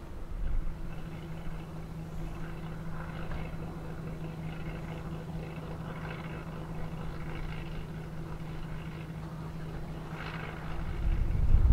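Piper Turbo Arrow IV's turbocharged six-cylinder engine and propeller running at low taxi power, a steady hum. Near the end a louder low rumble rises.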